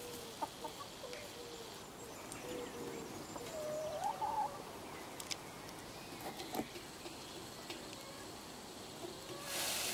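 Domestic hens clucking softly now and then, with a clearer call about four seconds in and a few sharp clicks. A rustling hiss starts near the end.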